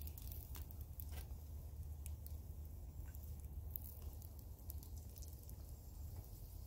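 Faint sizzling of a square sausage frying in a small pan over a wood fire, with scattered small crackles and pops.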